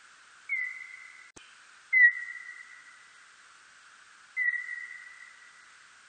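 Birdlike noctule bat (멧박쥐) calls: three short whistle-like calls, each a quick drop in pitch that settles into a steady tone and fades out, over a steady hiss. A faint click falls between the first two calls.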